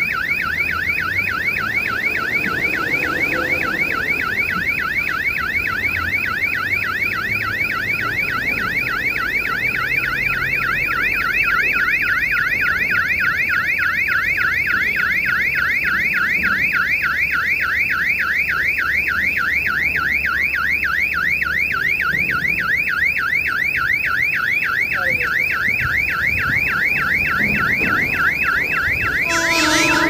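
Portable remote-controlled railway warning hooter sounding continuously, an electronic siren tone sweeping up and down several times a second: the signal that a train is approaching. Near the end, the approaching train's horn comes in over it.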